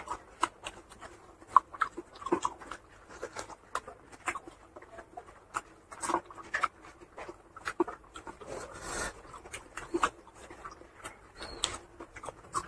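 Close-miked chewing and lip smacking of a person eating pork curry and rice by hand: irregular wet mouth clicks, a few a second, with one longer, noisier sound about nine seconds in.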